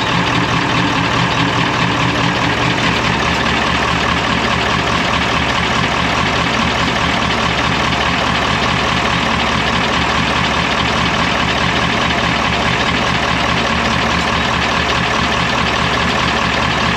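Deutz V8 diesel of a MAN KAT truck idling steadily, heard close-up in the open engine bay while it is checked by ear for a knocking cylinder.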